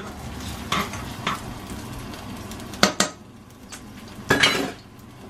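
Kitchen clatter: a metal spoon and pan clinking and knocking on the stovetop several times, with one sharp strike near the middle and a louder, noisier clatter near the end, as ginger slices go into hot oil in a non-stick saucepan.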